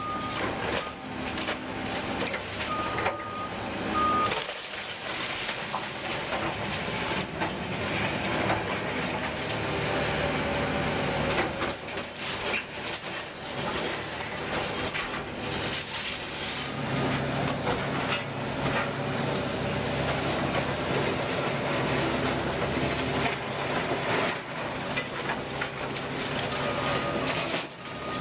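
Diesel engines of a Kobelco tracked excavator and a skid-steer loader running steadily during the demolition of a brick building, with frequent clatter and crashes of falling brick and debris. A reversing alarm beeps in the first few seconds.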